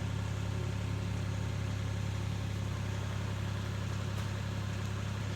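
An engine idling steadily, an even low drone.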